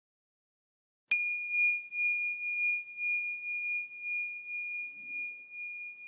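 A small bell struck once about a second in, its single high ringing tone sustaining and slowly wavering in loudness as it decays.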